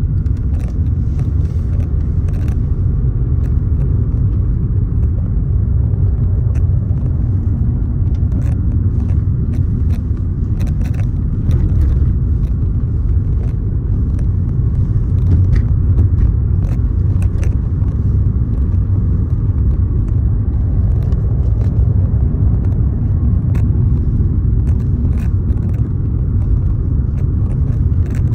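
A steady low rumble with no pitch or rhythm, dotted with a few faint clicks.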